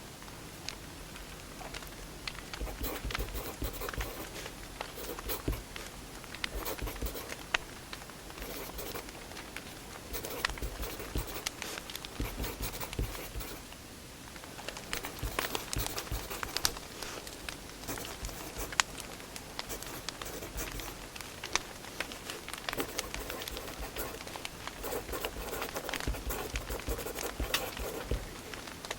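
Firewood burning in a wood fire, crackling and popping in many small, irregular clicks over a soft steady rush.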